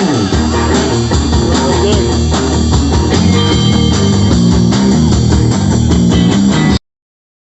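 Live rock band playing loudly, with guitar prominent. The sound cuts off abruptly to dead silence near the end.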